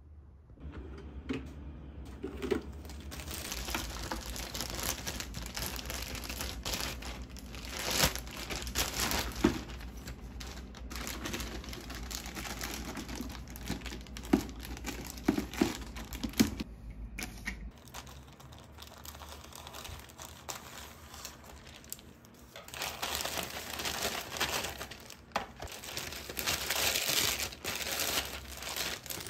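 Thin plastic bags crinkling and rustling as hands fit a liner into a small bin and then handle a plastic parcel mailer bag, with scattered light clicks and knocks. The crinkling grows louder for the last several seconds.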